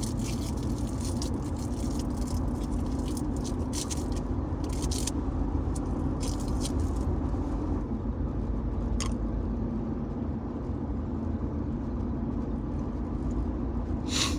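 Steady road and engine rumble inside a moving Jeep Wrangler's cabin, with a few short slurping sips through a juice-box straw.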